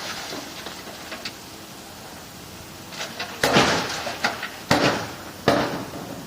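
A run of heavy knocks and bangs: three loud bangs about a second apart, the first some three seconds in, with lighter knocks between them.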